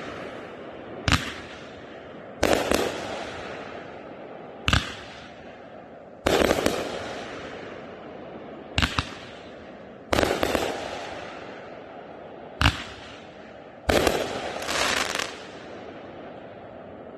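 A 500-gram 25-shot firework cake firing its last shots: about eight sharp breaks a second or two apart, several doubled, each followed by a fading crackle.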